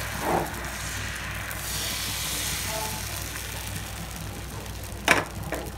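Thin egg-and-flour batter sizzling in an oiled nonstick frying pan as a crepe cooks, the hiss slowly growing quieter. A sharp click sounds about five seconds in, with a fainter one just after.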